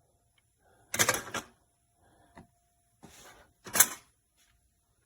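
Plastic clicks and knocks of a Miele CM 5310 coffee machine's drip tray parts being detached and handled: a quick cluster of clatter about a second in, then a short scrape and a sharp knock near the end.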